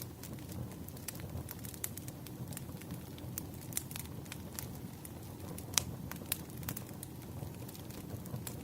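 Wood fire burning, with a low steady rumble and frequent irregular crackles and pops from the burning logs; one pop, a little over halfway through, is sharper than the rest.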